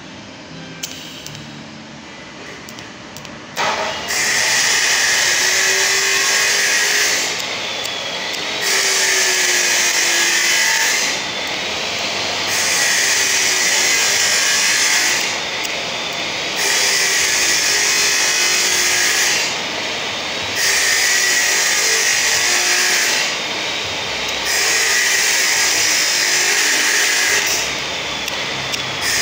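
TIG welding arc burning at a tube joint: a loud, high hiss-buzz that starts a few seconds in and then surges in regular stretches of about three seconds, easing briefly every four seconds or so without going out.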